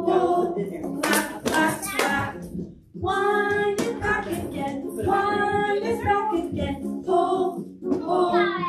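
A children's song: singing voices with music, in phrases broken by a short pause near the middle.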